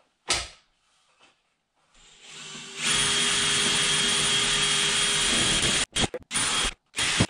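A short clack, then a cordless drill boring up into the cabin's wooden ceiling to start the chimney hole: it runs steadily for about three seconds, then stops and starts in short bursts near the end.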